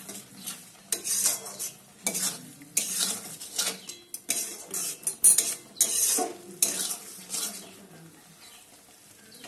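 A long metal spatula scraping and stirring thick masala around a metal kadai: quick repeated scrapes, about one and a half a second, with a light sizzle under them, stopping about two seconds before the end.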